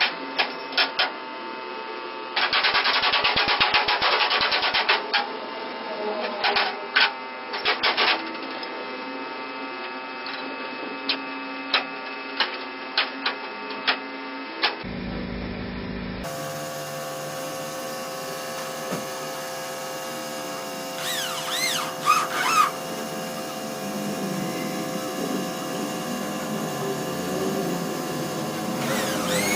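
Hammer blows on a pickup's sheet-metal body panel: a quick run of taps, then single sharp knocks spaced out over several seconds. After that comes a steady mechanical hum with a few brief clattering sounds.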